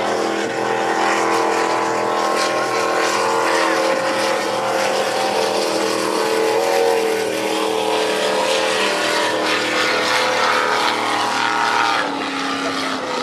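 Lobster boat's inboard engine running steadily at high revs over a rushing hiss of wind and water. The engine note wavers about seven seconds in and drops about twelve seconds in.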